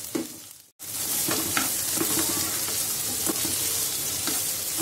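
Sliced onions sizzling in hot oil in a non-stick kadhai while being stirred with a spatula, with a few light scrapes and taps of the spatula against the pan. The sound cuts out completely for a moment just under a second in, then the steady sizzle resumes.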